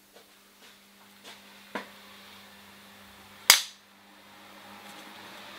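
Film clapperboard snapping shut: one sharp crack about three and a half seconds in, after a few lighter clicks, over a faint steady hum.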